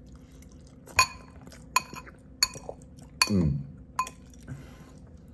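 Cutlery clinking against a dish, five short ringing clinks about three quarters of a second apart, with a short falling vocal sound from the eater about three seconds in.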